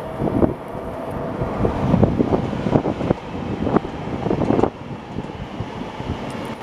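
Electric suburban trains, a Z22500 (MI2N) double-decker and a Z50000 Francilien, passing each other: a steady rumble of wheels on rail with irregular knocks, and wind buffeting the microphone. The level drops a little about two-thirds of the way in.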